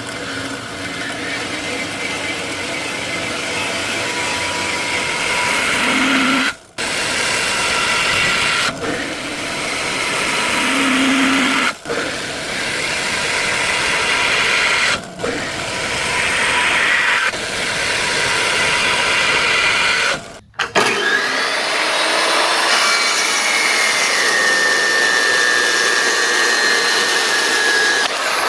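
A power tool cutting and grinding steel, a steady whine over harsh hissing noise, in several stretches broken by abrupt short gaps; in the last stretch the whine sinks slightly in pitch.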